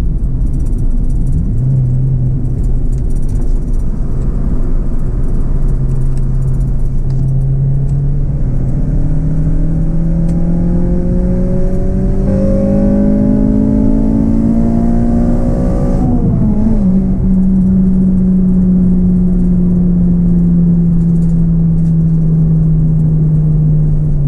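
Acura RSX's 2.0-litre K20 four-cylinder engine on a hard acceleration run (a VTEC pull): after steady running, the engine note climbs in pitch for about eight seconds, drops suddenly at the gear change about two-thirds of the way in, then settles into a steady note that slowly falls.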